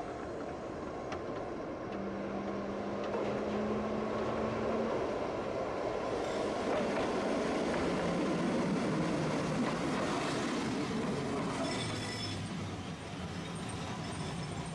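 Tosaden streetcar running along the track below, its rumble growing to a peak about eight to ten seconds in and then easing off, with faint high-pitched wheel squeal near the end.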